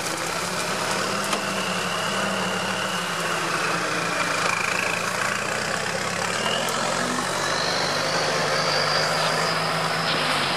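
UAZ off-road engines running under load during a strap tow of a bogged UAZ: a steady low engine drone, with a thin high whine that climbs in pitch in the second half.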